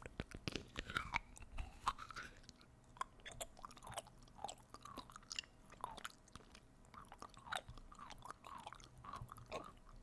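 Close-miked ASMR mouth sounds: a rapid, irregular run of wet clicks, lip smacks and mock chewing noises, as if eating.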